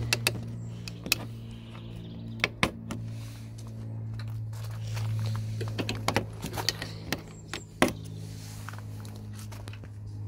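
Scattered sharp clicks and taps of a thin metal pick prising plastic push-in trim rivets out of a car's plastic front finisher panel, over a steady low hum.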